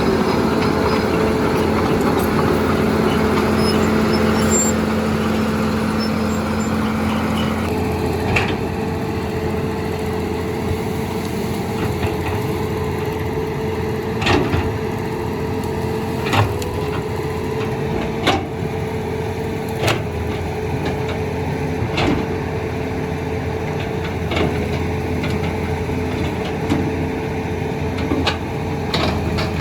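Heavy machine's engine running steadily, its pitch changing about eight seconds in. From then on, sharp knocks come every couple of seconds.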